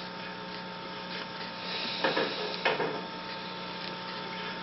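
Steady electrical mains hum with two short, faint noises a little past the middle.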